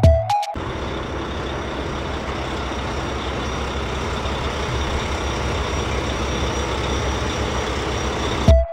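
Steady heavy truck engine running, starting and stopping abruptly like an edited-in sound clip.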